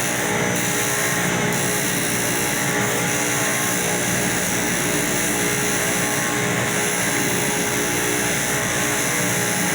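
Electric power sander running steadily, its motor humming under the hiss of abrasive against the surface.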